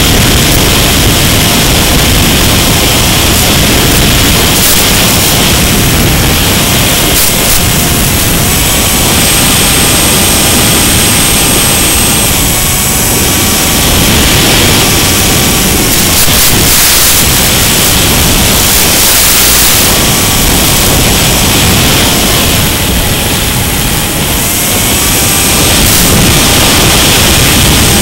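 Mini Skywalker FPV plane in flight, heard through its onboard link as a loud, steady rushing hiss over a faint electric-motor whine that rises and falls with the throttle. Short crackles of static break in about halfway through.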